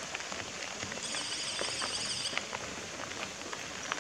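Bicycle tyres rolling and crunching over a loose gravel road, with scattered small clicks of stones. About a second in, a high-pitched buzz lasts for about a second.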